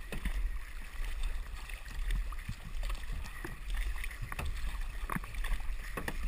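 Sea kayak paddles dipping and pulling through the water in repeated strokes, about one a second, with water splashing along the hull. A low wind rumble sits on the microphone throughout.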